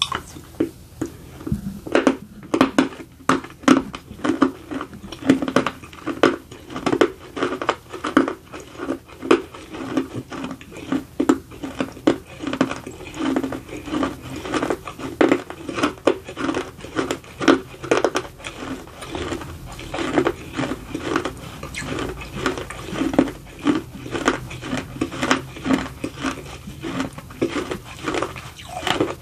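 Close-miked chewing of dry baked edible clay: a steady run of crisp, gritty crunches as the piece is ground between the teeth.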